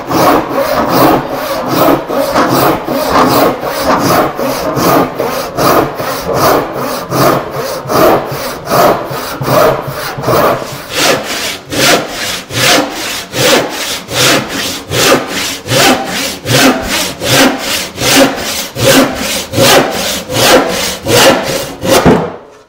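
Long, coarse-toothed handsaw crosscutting a wooden board to rough length, in a steady rhythm of strokes at about two a second. The sawing stops suddenly near the end.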